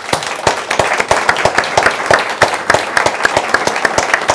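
A room audience applauding, starting all at once, with a steady run of sharper, louder claps at about three to four a second over the general clapping.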